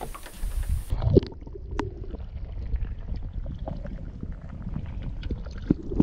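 Muffled water sloshing and gurgling as picked up by a camera held under the surface, a dull low rumble with scattered small clicks and one heavy thump about a second in.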